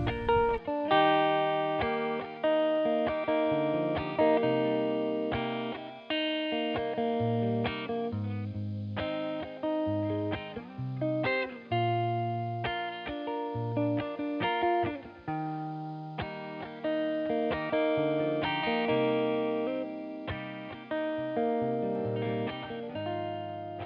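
Background music: a plucked guitar melody, note after note ringing and fading.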